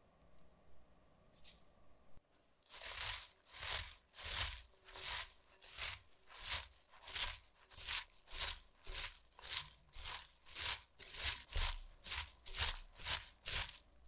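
Salted shredded cabbage being squeezed and massaged by a gloved hand to soften it: a rhythmic crunchy rustle, about one squeeze every 0.6 seconds, starting about three seconds in.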